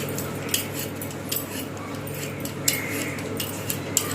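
Vegetable peeler scraping the skin off a raw potato in short, irregular strokes, over a steady low hum.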